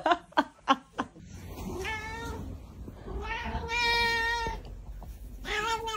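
A cat giving long, drawn-out meows: a short one about two seconds in, a longer steady one after it, and another starting near the end. A few quick knocks come in the first second.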